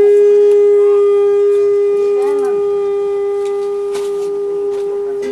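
Conch shell (sankhu) blown in one long, steady note that slowly weakens, with faint voices underneath.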